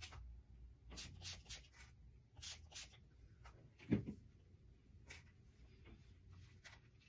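Faint rustling and rubbing as hands work through a synthetic wig's hair, with a single dull knock about four seconds in.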